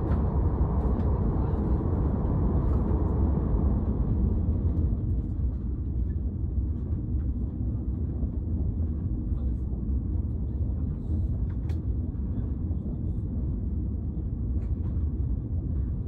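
Steady low rumble of a passenger train running, heard inside the carriage, a little fuller for the first few seconds and then settling.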